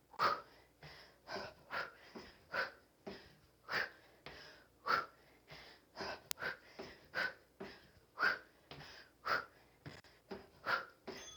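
A person breathing hard through the mouth, with short, forceful exhales about twice a second, in rhythm with kickboxing knees and kicks.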